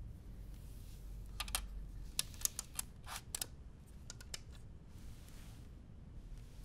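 A scattered run of light clicks and taps, about a dozen, as a rubber band is stretched and fitted around a metal paint tin, over a low steady room hum.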